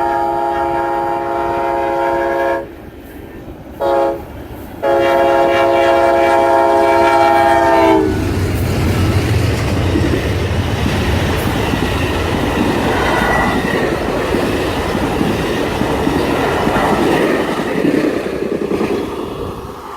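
Amtrak locomotive's multi-note air horn sounding the end of the grade-crossing signal: a long blast cutting off, a short one, then a final long blast. The passenger train then rushes past with a loud rumble and wheels clattering over the rail joints.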